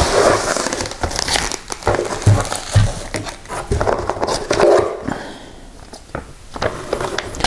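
Cardboard box flaps and plastic packing crinkling and rustling as items are handled and lifted out of a shipping box, with a few short clicks and two soft knocks a little over two seconds in.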